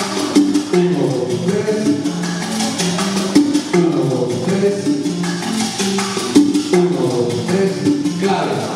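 Salsa music with a steady percussion beat.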